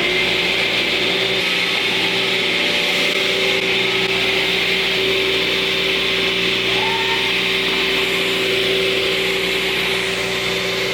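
Power saw running steadily while plywood is cut to size, its motor having just spun up.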